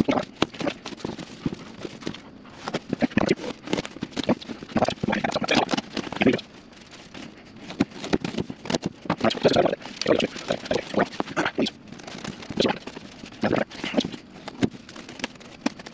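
EVA foam play-mat being cut with a hand knife and handled: irregular scraping, creaking and clicking as the blade drags through the foam and the interlocking tiles are pulled apart.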